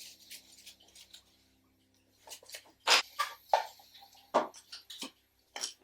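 Irregular handling clicks and taps, a dozen or so, the loudest about three seconds in.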